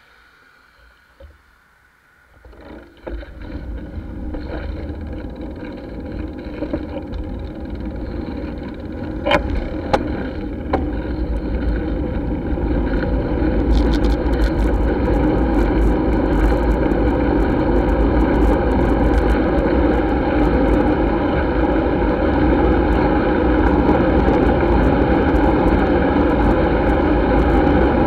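Wind noise buffeting a handlebar-mounted camera, with tyre rumble from a road bike, growing steadily louder as the bike picks up speed from about three seconds in. A few sharp clicks about ten seconds in.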